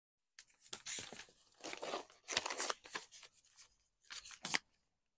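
Paper sewing-pattern envelopes rustling and crinkling as they are handled and swapped, in a string of short irregular bursts that stop a little after four seconds in.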